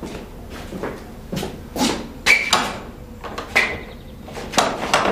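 Footsteps on a bare floor and a person working at a wooden door: a string of knocks and rattles, with a couple of short squeaks about halfway through.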